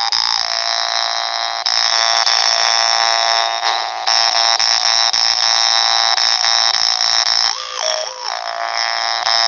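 Hmong ncas, a brass jaw harp, being played: a buzzing drone thick with overtones that holds steady, then changes tone near the end as the player reshapes the mouth.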